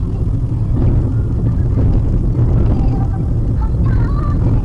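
Steady low road and engine rumble inside a moving Maruti Suzuki WagonR's cabin, heard through a dashcam's microphone, with a few faint wavering higher tones over it.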